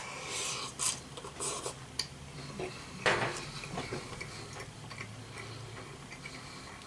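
Utensil clinking and scraping in a cup of instant ramen during eating: a few sharp clicks and short noisy bursts, the loudest about three seconds in, then quieter.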